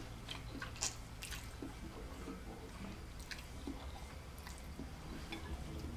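Close-up mouth sounds of a person eating ramen noodles: wet chewing, smacking and short slurping clicks, with one sharper click about a second in.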